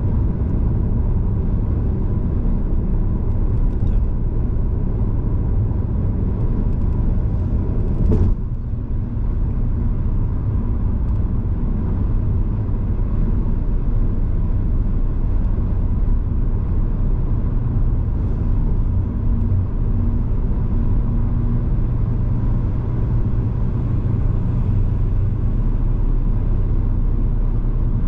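A car driving at speed, a steady low road and tyre rumble with a faint steady whine. There is one short knock about eight seconds in.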